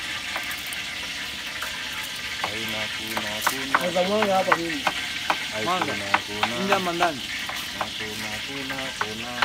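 Food frying in hot oil, a steady sizzle. Wavering pitched calls or voices come and go in the middle.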